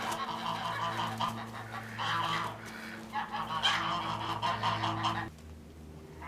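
Flock of domestic geese honking repeatedly in overlapping calls, clamouring for their morning feed. A steady low hum runs underneath and cuts off about five seconds in.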